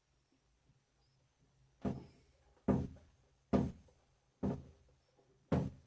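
Five short knocks of hard objects, spaced a little under a second apart, beginning about two seconds in.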